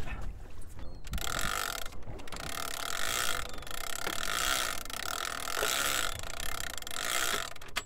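Penn International big-game trolling reel with line running off the spool, its drag and clicker giving a steady, loud buzzing rasp that starts about a second in and cuts off suddenly just before the end: a tuna taking line.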